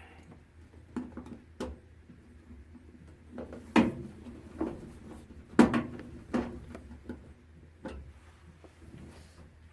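Irregular knocks and clunks of hard objects being handled and set down, the loudest two about four and six seconds in.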